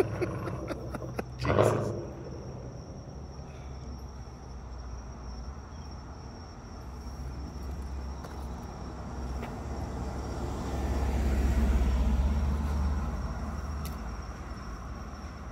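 2021 Mustang GT's 5.0 V8 through a muffler-delete axle-back exhaust with an H-pipe, a deep exhaust rumble that builds as the car approaches, is loudest about eleven to thirteen seconds in as it passes, then fades as it drives away. A single sharp thump about a second and a half in.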